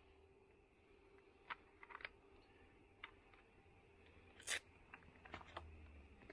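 Near silence with a few faint scattered clicks and one short, louder noise about four and a half seconds in.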